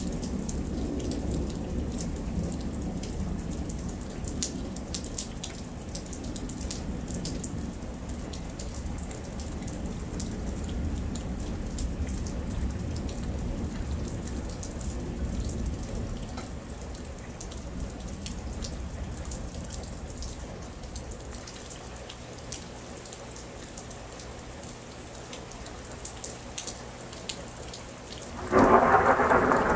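Steady rain falling on pavement, with many small drop and drip ticks and a low thunder rumble that fades away over the first two-thirds. Near the end a sudden loud clap of thunder breaks in.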